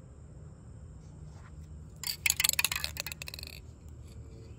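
A short burst of rapid rattling clicks lasting about a second and a half, over a faint low hum.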